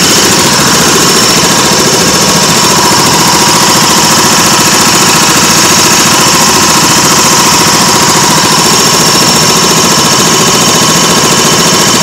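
A bumper boat's small gasoline engine running steadily and loudly, heard up close from aboard the boat.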